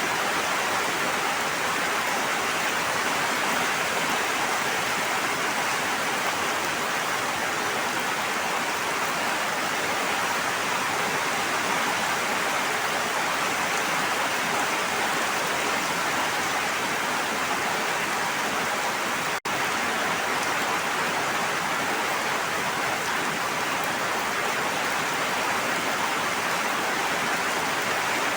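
Steady, even rush of water, either heavy rain or flowing water. It has a momentary dropout about two-thirds of the way through.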